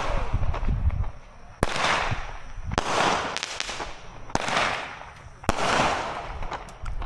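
Small multi-shot consumer firework cake firing in turn: four sharp bangs about a second apart, each followed by a hiss that fades away.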